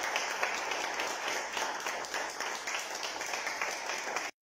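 Applause: many people clapping hands in a dense, steady patter that stops abruptly near the end.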